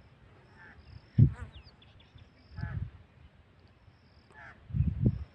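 Quiet outdoor background with faint high chirping and a few short, faint calls spaced about a second and a half apart.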